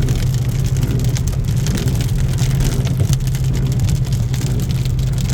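Steady engine and road drone heard inside a moving car, with raindrops striking the vehicle as scattered sharp ticks.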